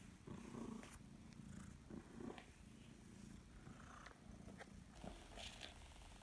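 A young calico cat purring: a faint, low, grumbly purr, with a few soft rustles from a hand stroking its fur.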